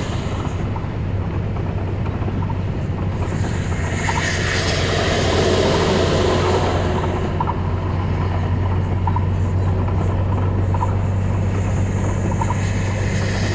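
Vehicle engine running with a steady low drone heard from inside the cab, under a wash of heavy rain and wet-road noise that swells for a few seconds midway. Faint short clicks come about once a second.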